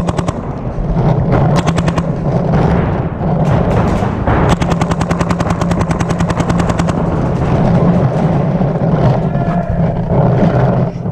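Paintball markers firing rapid strings of shots, about ten a second, with a steady low hum underneath.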